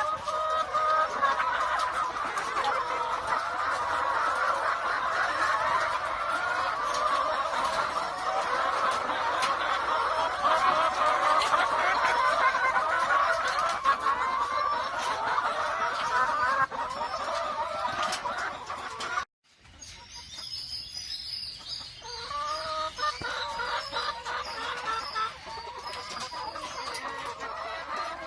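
A large flock of caged BV380 layer hens clucking and cackling in a dense, continuous chatter. The sound cuts out for a moment about two-thirds of the way in, then returns more quietly.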